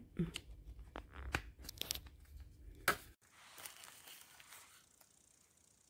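Handling noise from a plastic travel plug adapter: a run of small clicks and rustles, with a sharper click about three seconds in, then a faint hiss.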